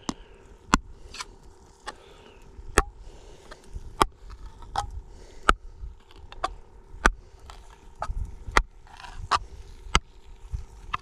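Knife tip stabbing into the lid of a tin can of beans to punch vent holes before it is heated in a campfire: about a dozen sharp clicks, unevenly spaced at roughly one a second.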